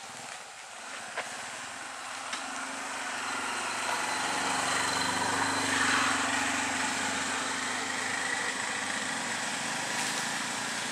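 Engine of a passing motor vehicle, growing louder to a peak about halfway through and then easing off.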